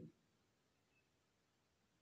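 Near silence: room tone, with the tail of a man's voice cut off at the very start.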